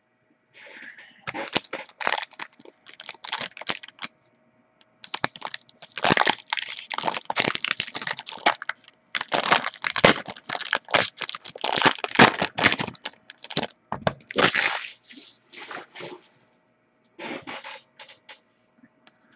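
Handling noise as a trading-card mini box and its card pack are torn open: repeated crackling and crinkling of wrapper and cardboard, in irregular rustling spells.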